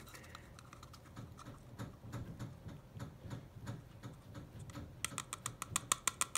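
Light clicks and taps from handling plastic paint cups, with a quick run of sharp clicks, about eight a second, near the end.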